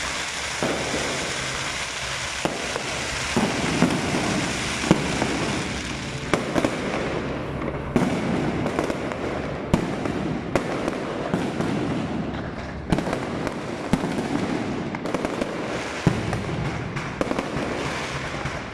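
Fireworks going off: a dense, continuous crackling hiss of rising spark shots, then, from about a third of the way in, sharp bangs of shells bursting roughly once a second over continued crackle.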